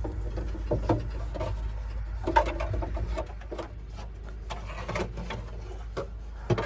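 Scattered light clicks and knocks with some rubbing as body panels are handled and fitted back onto the front of a machine, the sharpest knock about two and a half seconds in, over a steady low rumble.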